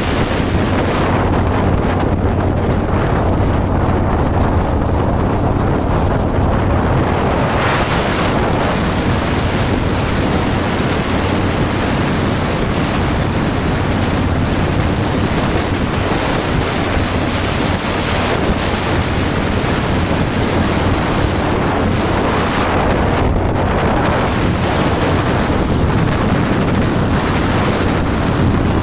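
Heavy wind noise buffeting the microphone on a motorcycle at highway speed, over the steady drone of its engine.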